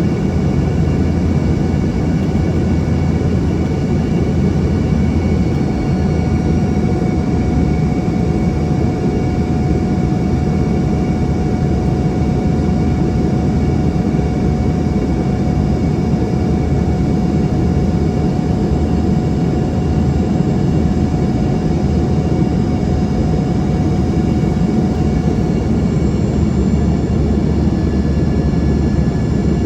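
Steady in-flight cabin noise of an Embraer ERJ-145: a constant rumble of engine and airflow with the even whine of its rear-mounted turbofan jet engines, several steady tones running through it.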